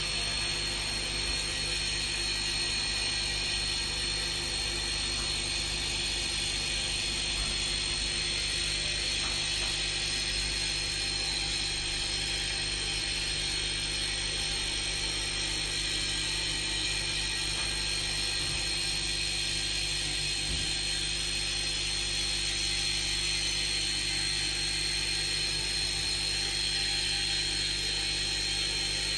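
Geared electric drive turning a steel mandrel, running steadily with a high whine over a low hum, while 6 mm solid stainless steel rod is wound into coiled rings around it.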